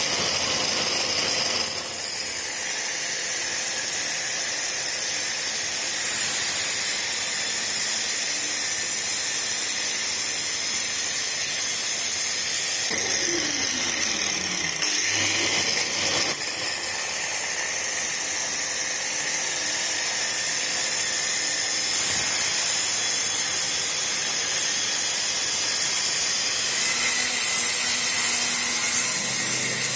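Bosch angle grinder with a 125 mm disc cutting into a wall, a Metabo shop vacuum running with it to draw the dust through a shroud. About thirteen seconds in the grinder's pitch falls as it spins down, and it starts cutting again a few seconds later.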